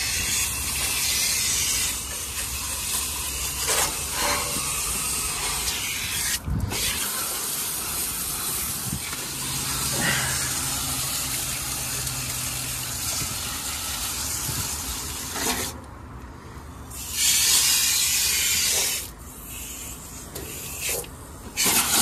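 Garden hose spray nozzle jetting water through the dirty condenser coil of a Ruud/Rheem split-AC outdoor unit: a steady hiss of spraying water. Near the end the spray cuts off twice for a second or two and comes back.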